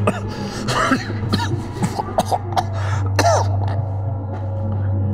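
A man coughing, gasping and groaning in pain in a string of short, strained bursts, over a low steady hum.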